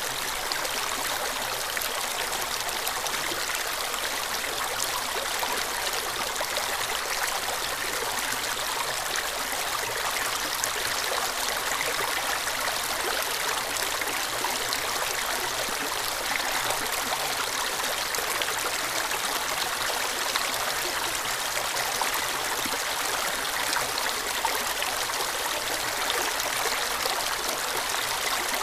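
Stream water flowing over and between rocks: a steady, even rush with no pauses.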